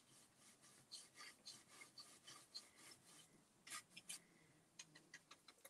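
Paintbrush bristles scratching and dabbing faintly on a metal file cabinet drawer, with quick short strokes and a couple of sharper taps about four seconds in, as paint is worked around the drawer handle.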